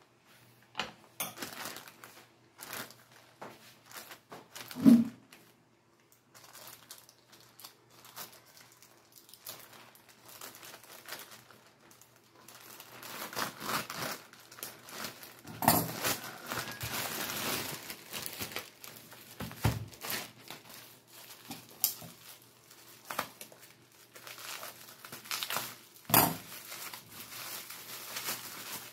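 Thin plastic mailer bag crinkling and rustling as it is handled and opened by hand, in irregular spells with a denser stretch past the middle. A single dull thump about five seconds in is the loudest sound. Bubble wrap crinkles near the end.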